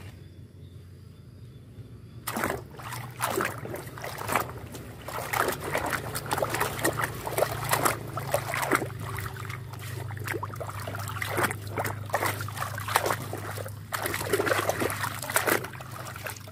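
Water splashing and sloshing in a tub as a plastic toy excavator is scrubbed by hand in it, in quick irregular splashes that start about two seconds in.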